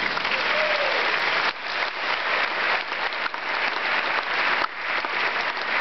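A large audience applauding: dense, steady clapping from a full auditorium.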